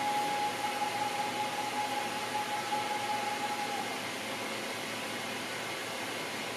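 Steady background hiss with a steady, thin high tone that stops about four seconds in.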